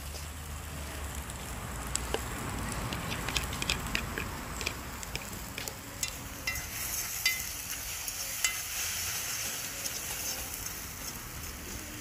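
Beaten egg frying in a pan with a steady sizzle, with a fork clicking and scraping against the pan as it stirs.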